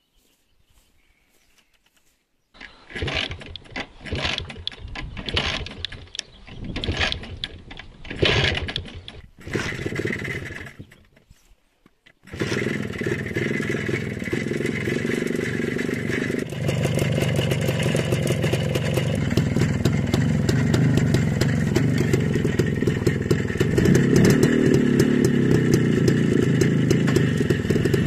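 Soviet Minsk single-cylinder two-stroke motorcycle engine being started: a few seconds of uneven, stop-start engine sound, then about twelve seconds in it catches and runs steadily, its note stepping up louder twice.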